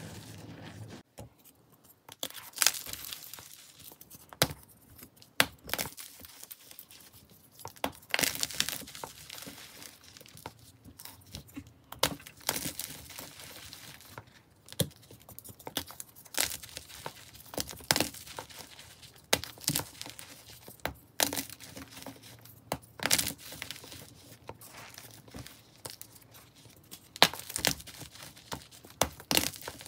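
Hands crushing soft white chalk blocks into powder: a dozen or so sharp crunches a second or several apart, with soft crumbling and powder rustle between them. For the first second or so, before the crunches, hands squeeze loose grey dusty powder with a softer, gritty sound.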